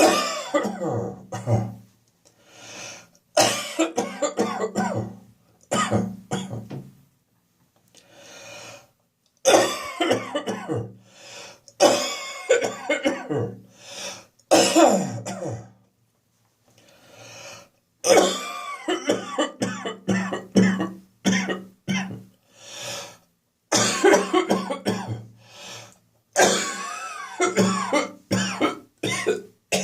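A man's loud coughing fits from catarrh in his chest and throat: a productive, phlegmy cough mixed with throat clearing. It comes in about ten bouts of several coughs each, with short quieter pauses between them.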